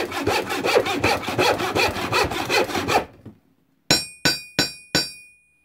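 Rapid, even sawing strokes through wood, about five a second, for roughly three seconds. They stop, and then come four sharp strikes about a third of a second apart, each ringing on after the hit.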